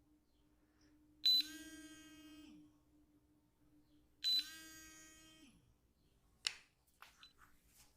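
A pitched tone with many overtones sounds twice, about three seconds apart, each starting sharply and fading over about a second. Near the end comes a sharp snap, then a few lighter clicks.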